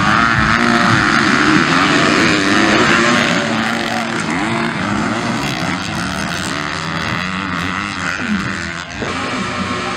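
A pack of motocross bikes racing together, several engines revving up and down over one another as the riders accelerate and back off.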